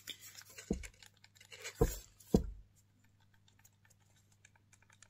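Fingers handling a white plastic handheld device: small plastic clicks and scratches throughout, with three louder knocks about three-quarters of a second, two seconds and two and a half seconds in.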